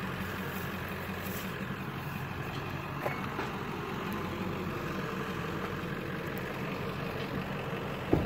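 Pickup truck engine idling steadily with a low hum. A small click about three seconds in and a sharper knock, the loudest sound, just before the end.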